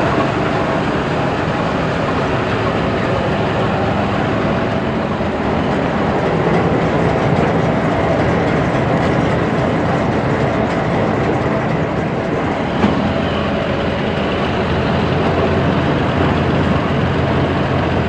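New Holland combine harvester running: a loud, steady din of its engine and threshing machinery. One short sharp knock comes about two-thirds of the way through.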